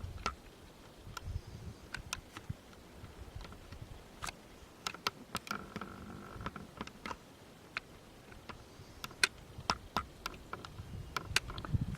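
Camera handling noise: scattered, irregular faint clicks and ticks over a low rumble, with a faint brief tone about halfway through.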